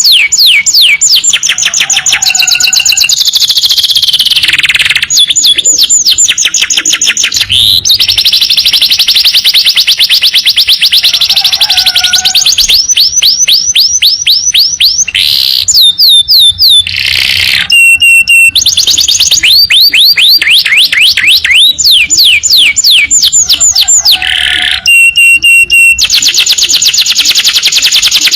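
Domestic canary singing a long, loud song of fast trills: runs of rapidly repeated rising chirps that switch from one trill type to another every few seconds, with a few short buzzy passages between them.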